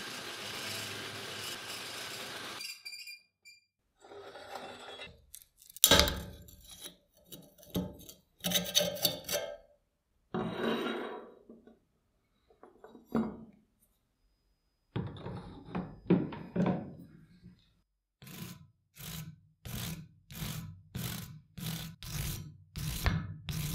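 An end mill cutting the steel plate of an old torque wrench, a steady machine noise that stops about two and a half seconds in. Then scattered knocks and scrapes of metal parts handled on a wooden workbench, and in the last six seconds a regular run of scraping strokes, a little under two a second, as a hand tool works the metal.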